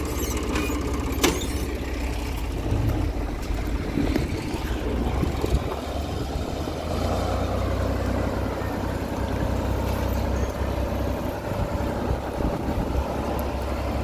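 Small farm tractor's engine running steadily as it pulls a two-wheeled trailer away, with one sharp clank about a second in.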